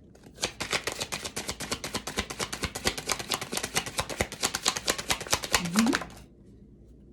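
A deck of tarot cards being shuffled by hand: a rapid, even run of crisp card snaps, about eight a second, stopping about six seconds in.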